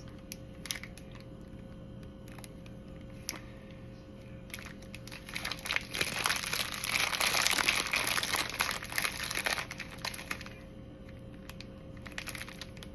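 Crinkling of the plastic wrapping on a pack of Lotus Biscoff cookies being handled. There are scattered rustles at first, then about five seconds of steady crinkling that stops shortly after ten seconds in.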